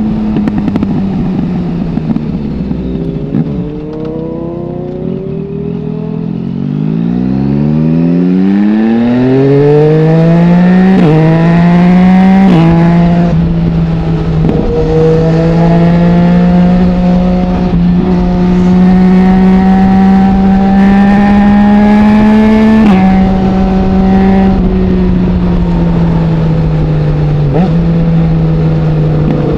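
2020 Yamaha MT-09's inline three-cylinder engine through an Akrapovic full exhaust with no dB killer, under way. The revs fall off at first. About a quarter of the way in it accelerates hard with a steeply rising note, cut by two quick upshifts, then holds a steady cruise with slowly climbing revs. It rolls off about three quarters of the way through.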